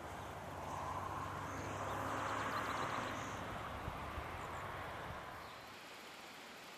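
Faint outdoor background noise: a low hum under a hiss that swells for a couple of seconds. It drops to a quieter, even hiss about five and a half seconds in.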